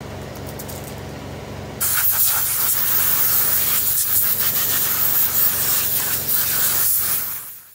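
A low steady hum, then about two seconds in a compressed-air blow gun opens with a loud hiss, blowing through the pleated outer air filter element of a Deutz D4506 tractor to clean the dust out of it. The hiss wavers as the nozzle moves inside the filter and dies away near the end.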